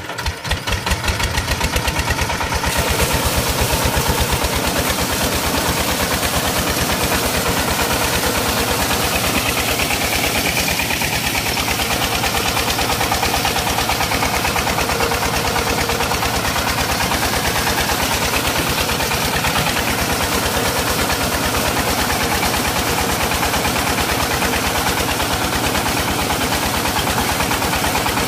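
Hand-cranked single-cylinder diesel engine catching and running up to speed over the first couple of seconds, then running steadily with an even thudding beat as it drives a belt-driven centrifugal irrigation pump. Water gushes from the pump's outlet pipe under the engine noise.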